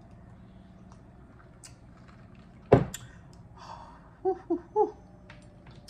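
A drinking glass set down on a table with one sharp knock, the loudest sound here, about three seconds in. About a second later come three short hummed "mm" sounds from a woman with her lips closed.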